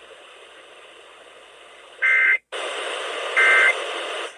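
Radio receiver hiss. About two seconds in come two short, shrill two-tone data bursts about a second and a half apart: the Emergency Alert System end-of-message code that closes the warning. A brief dropout follows the first burst, and the hiss is louder after it.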